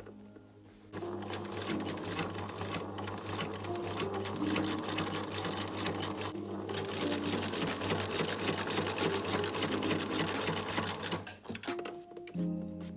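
Home sewing machine stitching at speed, a fast even run of needle strokes. It starts about a second in, pauses briefly midway, and stops shortly before the end.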